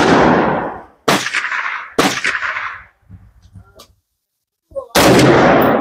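AR-15-style rifle firing single aimed shots, four in all: one right at the start, two more about a second apart, and a fourth about three seconds later. Each is a sharp crack followed by a fading echo.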